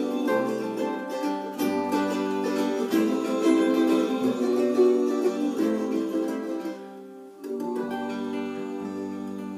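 Acoustic string trio of mandolin, acoustic guitar and upright double bass playing a tune, with picked notes over plucked bass notes. The playing thins out about seven seconds in, then a closing chord with a low bass note comes in and is left to ring and fade.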